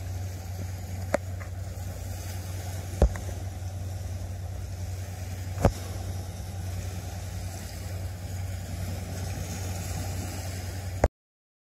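A steady low engine drone over a light hiss, broken by sharp clicks about one, three and five and a half seconds in. It cuts off abruptly near the end.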